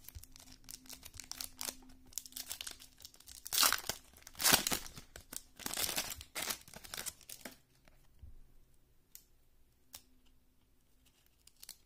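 A foil trading-card pack wrapper crinkling and tearing open by hand, loudest about four seconds in, followed by quieter handling of the cards with a few faint clicks.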